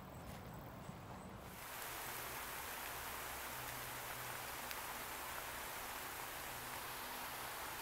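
Wind rustling through tall meadow grass: a steady, even hiss that comes in abruptly about a second and a half in, after a short stretch of low rumble.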